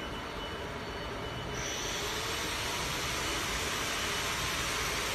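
Fiber laser marking machine running on aluminium sheet: a steady mechanical hum and hiss that turns brighter and hissier about one and a half seconds in, then holds.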